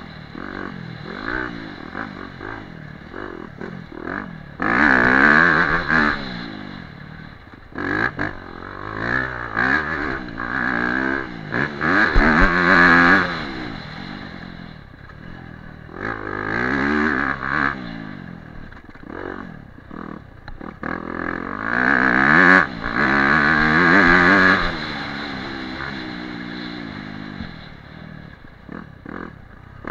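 Dirt bike engine revving up and down again and again as the throttle is opened and shut through the ride, with several loud full-throttle pulls.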